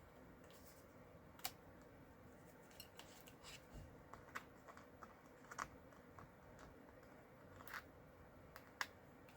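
Light, irregular clicks and ticks from cardstock pieces and metal cutting dies being handled on a craft table, over faint room hiss.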